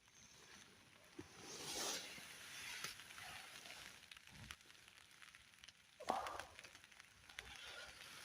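Faint rustling of fabric with a few soft knocks and a dull thump, as someone shifts about getting ready to pack up a camp shelter.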